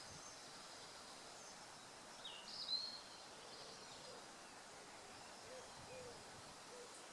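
Faint spring woodland ambience: wild birds calling at a distance over a soft background hiss, with one brief, louder high call between two and three seconds in and a few soft low notes in the second half.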